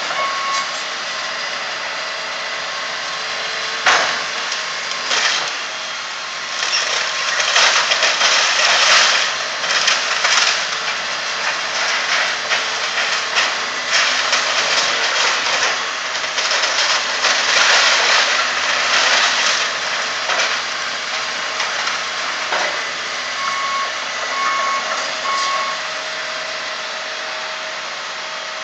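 John Deere 250G excavator's diesel engine running under load while its bucket crunches through the wood framing and metal siding of a building, with a sharp crack about four seconds in and louder stretches of breaking debris. A back-up alarm beeps a few times near the end.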